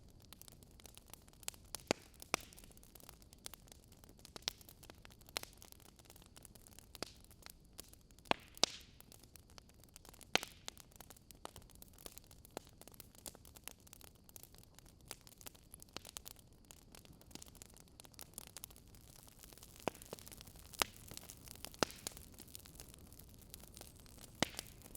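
Wood fire crackling: irregular sharp pops and snaps from burning logs over a low steady hiss.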